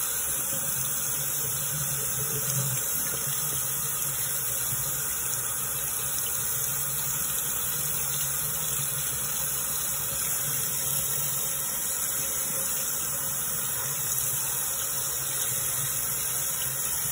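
Sink tap running steadily, its stream pouring over and through a water pitcher filter cartridge held under it and splashing into the basin: the new filter is being rinsed to flush out loose carbon dust.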